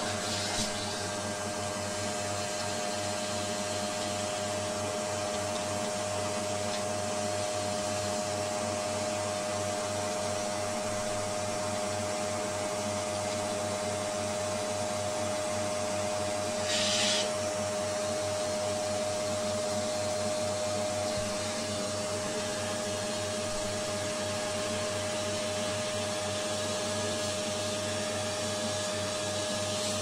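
Vacuum cleaner running steadily, its hose nozzle sucking dust out of a DVR's cooling fan; a brief louder rush of air a little past halfway through.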